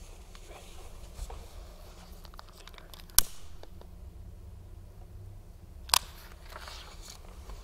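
Two sharp clicks about three seconds apart from a handheld lighter being fired to light a candle, with faint paper rustling and handling noise around them.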